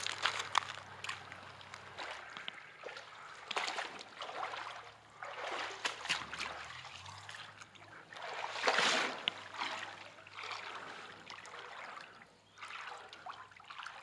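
Creek water trickling and splashing in irregular bursts, the strongest about nine seconds in, with a few light clicks.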